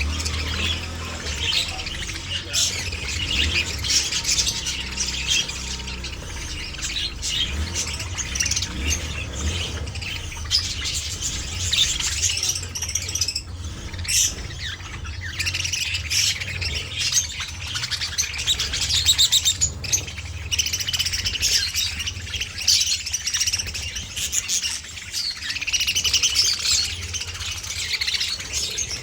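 Budgerigars chattering, a dense unbroken stream of warbling chirps and squawks over a steady low hum.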